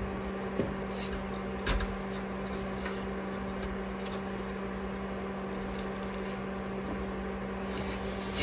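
Steady low hum with a few faint clicks and knocks of hand tools and suspension hardware being handled, the slightly louder one right at the end.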